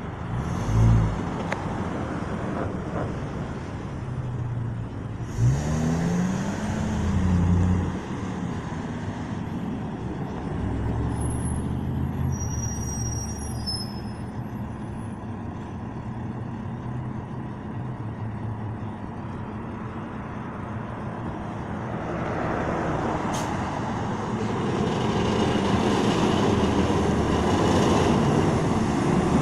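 Bus engines in street traffic: a small shuttle bus's engine rises and falls in pitch about six seconds in as it pulls away, then a full-size city bus drives past, its noise building over the last several seconds.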